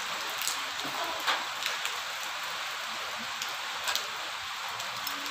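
A few light metal clicks from a Honda CBR's rear brake caliper and its pad pin being handled and fitted, over a steady hiss.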